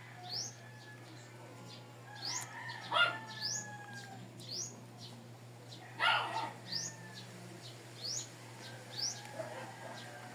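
A bird chirping repeatedly, a short rising note about once a second, over a steady low hum. Two louder, noisier sounds stand out about three and six seconds in.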